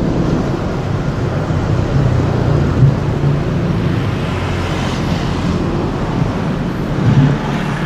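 Motorcycle engine running steadily while under way, with road and wind noise.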